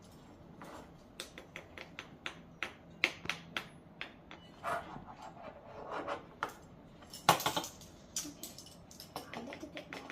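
Irregular light clicks and taps of a spoon against dishes and containers during pie preparation, with a louder cluster of clinks about seven seconds in.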